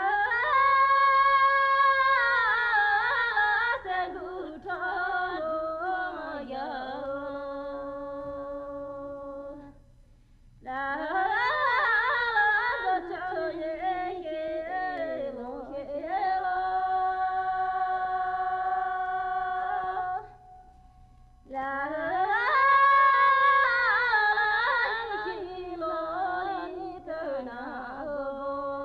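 Unaccompanied solo voice singing a Tibetan pastoral folk air in three long phrases. Each phrase opens with a rising note, wavers, and settles into long held notes, with two brief pauses between phrases.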